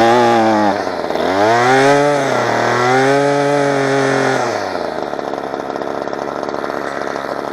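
Kawasaki KTF27A string trimmer's small two-stroke engine running, revved up twice and then dropping back to a steady idle about five seconds in. It is running again after a choke repair, though the owner thinks it may still need fine tuning.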